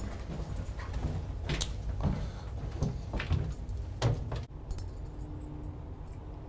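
Ship's passenger lift being entered and ridden: a string of clicks, knocks and clinks over a low rumble, a sharper knock about four and a half seconds in, then a low steady hum.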